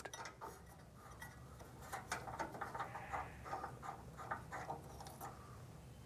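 Faint, irregular small clicks and rattles as the water filter cover of a Furrion tankless water heater is unscrewed counterclockwise by hand and pulled off its brass inlet.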